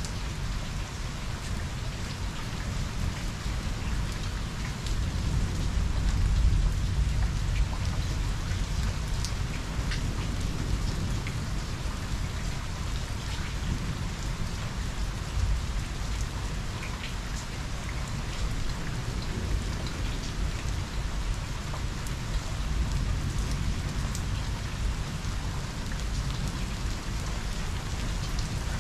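Steady heavy rain, with single drops tapping close by. A low rumble of thunder swells about six seconds in and slowly dies away under the rain.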